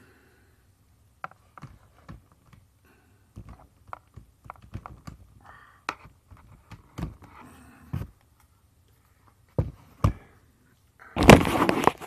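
Handling noises: scattered small clicks and knocks, with two louder thumps about ten seconds in. Near the end comes a loud rustling scrape as the camera itself is grabbed and moved.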